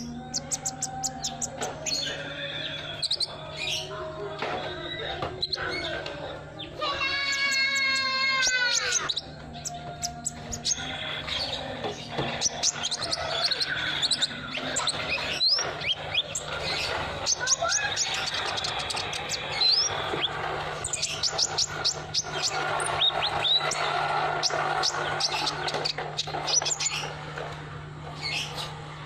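Sunbird song: rapid high chirps and twittering trills, with a harsher call from about seven to nine seconds in. A steady low hum runs underneath.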